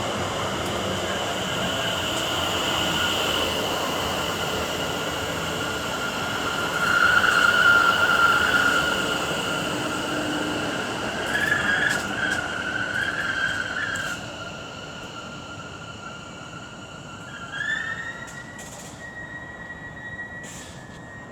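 Class 730 electric multiple unit running into the platform and braking to a stand, with a steady high squeal from the wheels and brakes that swells about 7 s and 12 s in. After about 14 s it quietens as the train stands, and a tone rises and holds near the end.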